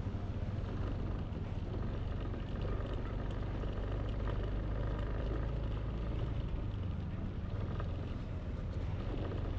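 Yamaha Aerox scooter's single-cylinder engine running at a steady pace while riding, with road and wind noise.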